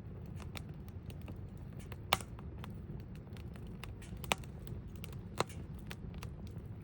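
Campfire burning with constant irregular crackling and three louder sharp pops about two, four and five seconds in, over a low steady rumble of the flames.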